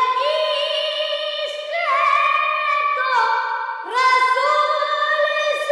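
A boy singing an Urdu naat in a high voice, holding long notes with gliding ornaments and starting new phrases about two and four seconds in.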